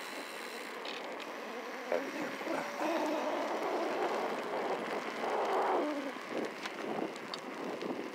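Riding noise of a Bafang M600 mid-drive electric mountain bike at low speed: steady rolling and wind noise, with a faint steady tone about two seconds in.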